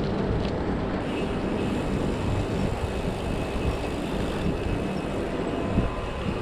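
Wind buffeting an action camera's microphone on a moving bicycle, with road noise: a steady low rumble.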